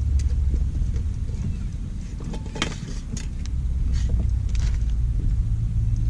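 Steady low engine rumble with scattered clicks and knocks.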